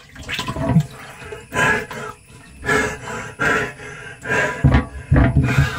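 A man's strained grunts and gasps, a handful of short bursts with a longer, deeper one near the end, as he struggles for air inside a closed water tank.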